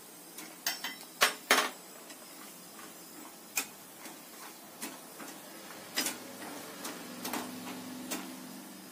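Perforated metal spatula clinking against a wire-mesh frying basket and kadai while stirring dried coconut slices in hot oil: about ten irregular sharp clicks, the loudest two a little over a second in.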